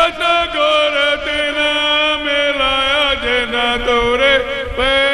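Slow, drawn-out singing of Gurbani kirtan: a male voice holds long melismatic notes, the pitch bending and gliding, with musical accompaniment.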